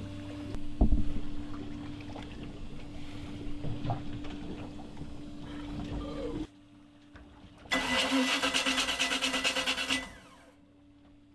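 A boat's inboard engine cranked on its starter for about two seconds, in a fast even rhythm, and not catching: a stalled engine that will not restart, which the owner puts down to a dead fuel pump. Before it, a steady low hum with a single thump about a second in.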